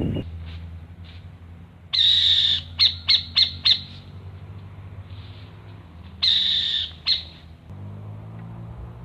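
A bird giving two harsh, scratchy calls, the first followed by a quick run of about five short sharp notes, over a low steady hum.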